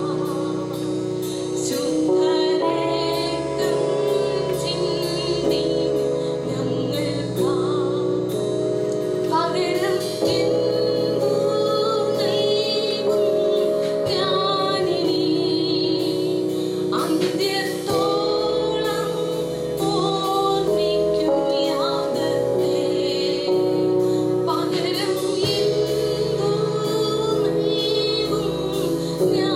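Worship song in progress: female voices singing a melody over sustained chords and a steady beat.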